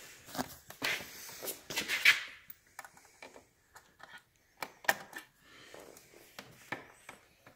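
Hands working metal parts and tools on a motorcycle: a series of irregular clicks and light knocks, with a louder scraping rustle about one to two seconds in.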